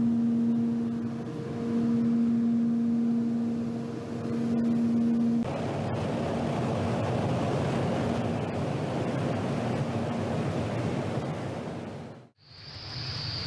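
Jet noise from F-15E Strike Eagle fighters: a steady, broad roar that changes abruptly at edits. For the first five seconds a steady low hum runs under it, and near the end, after a brief drop-out, a high turbine whine rises over the roar.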